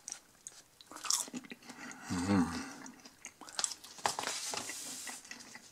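A person chewing a mouthful of soft, non-crunchy fries with garlic sauce: small wet clicks of the mouth. There is a short hum of the voice about two seconds in.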